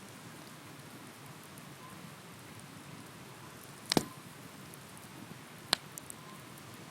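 Wood bonfire burning with a steady soft hiss and faint crackle, broken by a loud pop about four seconds in and a second sharp crack a couple of seconds later.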